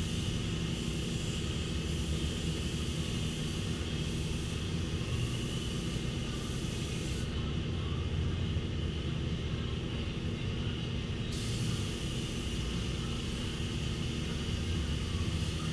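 1999 Suzuki Hayabusa's inline-four engine idling steadily, with no revs.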